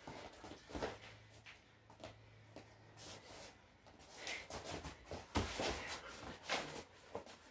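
Wrestling shoes scuffing on a vinyl wrestling mat, with the slaps and thumps of two bodies hand fighting. The contact gets busier after about four seconds, with the loudest thump about five and a half seconds in.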